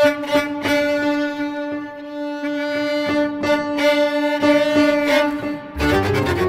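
Contemporary chamber music for bass clarinet, violin and piano: one long held note runs under a string of short, sharp strokes. Low notes come in near the end.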